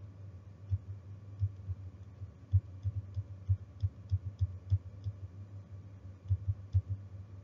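Irregular light clicks, some coming in quick runs of two or three, over a steady low hum.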